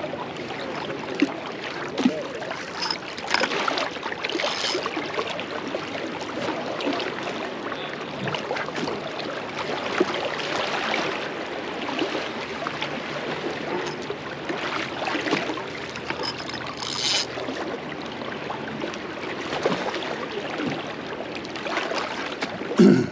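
River current rushing and splashing close by in a steady wash, with scattered short knocks and splashes. A louder knock comes just before the end.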